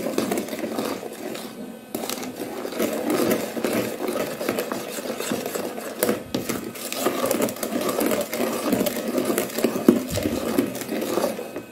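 A wooden spoon beats a thin cake batter by hand in a bowl, in fast continuous strokes that slosh the batter and scrape against the sides of the bowl.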